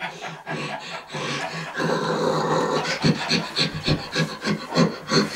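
A person imitating a dog's panting for a dog puppet: quick, rhythmic breaths, about four a second in the second half.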